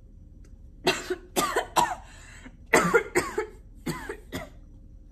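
A woman coughing into her hand: a fit of about six coughs in three short runs.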